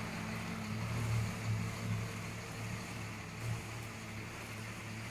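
A Casagrande drilling rig's diesel engine running steadily at a constant speed, a low hum that swells and dips slightly.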